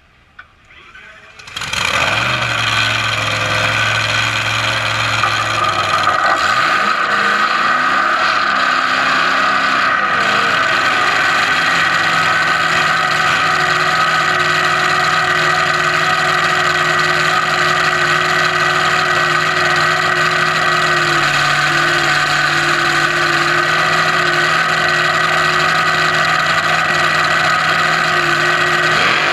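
Top Alcohol Dragster's supercharged alcohol-burning V8 firing up about a second and a half in, then idling loudly. The idle wavers for several seconds before settling steady, and the pitch begins to rise right at the end.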